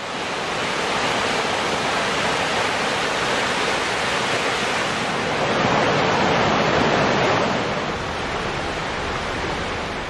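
Steady rushing of a waterfall tumbling over rock ledges into a rocky stream, slightly louder around the middle.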